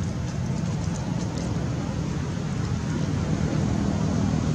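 Steady low rumble of outdoor background noise, with a few faint ticks in the first second or so.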